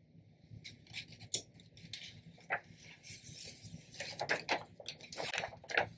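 Sublimation transfer paper crinkling and rustling as it is peeled off a freshly heat-pressed sequin pillow cover and lifted away. The irregular crackles are sparse at first, then come thicker and louder over the last two seconds.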